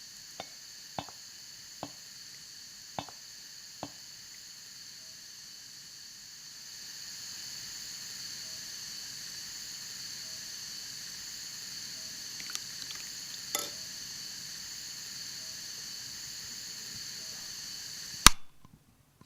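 A steady high-pitched hiss made of several faint tones, with a few sharp clicks in the first few seconds. It grows a little louder about a third of the way in. Near the end comes one sudden loud bang, then it cuts off.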